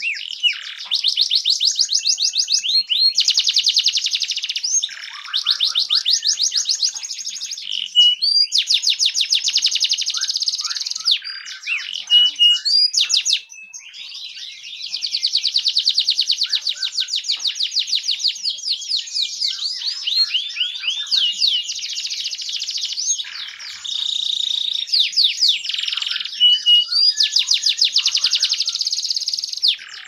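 Canary singing a long, high-pitched song of fast rolling trills and rapid repeated chirps, pausing briefly about halfway through before carrying on.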